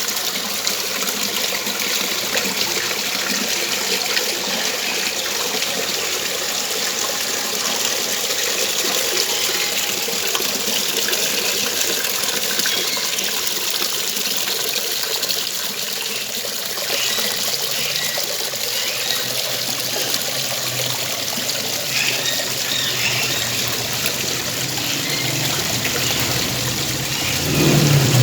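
Water from a small garden waterfall falling and splashing in a steady, unbroken rush. A low engine-like hum rises near the end.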